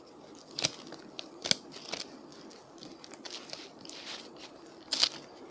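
Plastic masking being peeled and pulled off a freshly spray-painted boot, crinkling and crackling with several sharp snaps, the loudest near the end.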